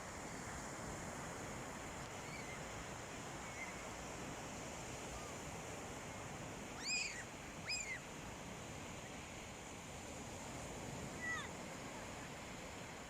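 Sea waves breaking on a shore, a steady wash of surf. A few short, high, arching calls sound over it, the loudest two about seven seconds in and another near the end.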